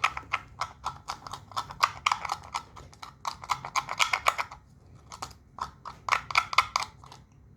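Rapid, irregular clicking and tapping, several clicks a second, in two runs with a short pause about five seconds in.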